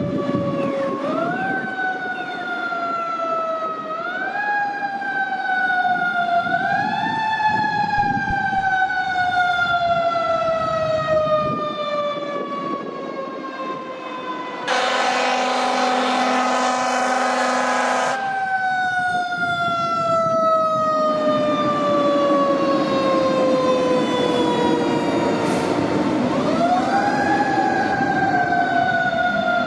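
Fire truck siren winding up quickly in pitch and then falling slowly, again and again. In the middle comes one long, loud horn blast of about three seconds.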